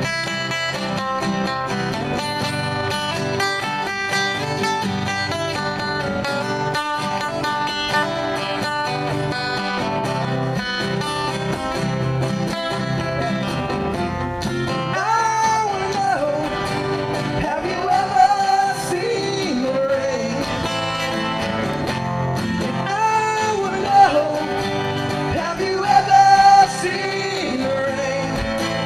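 Live country-rock band playing an instrumental break: strummed guitar and band backing, with a lead instrument taking a solo of bending melody lines from about halfway through.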